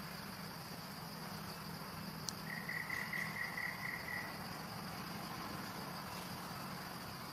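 Steady high-pitched insect drone of a tropical forest, with a short run of quick chirps about two and a half seconds in.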